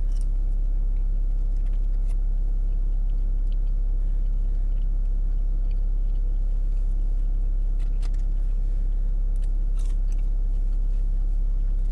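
Steady low rumble of a car's idling engine, heard from inside the cabin, with a few soft scattered clicks and crunches of fast-food fries being picked from a paper bag and chewed.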